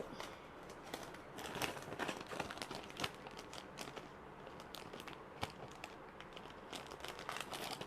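Faint crinkling and scattered light clicks of plastic jewellery packaging being handled, in irregular bursts.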